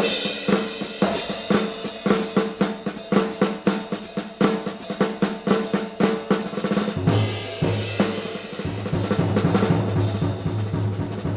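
Jazz drum kit playing in a live performance: snare, bass drum and cymbals in a fast, busy rhythm. A steady low rumble joins about seven seconds in. Heard from a cassette recording of an FM broadcast.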